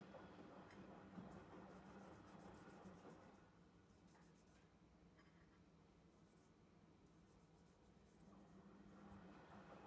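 Near silence: a faint low hum, with quiet scratchy rubbing in two stretches as the letter cutter and paste sheet are worked by hand.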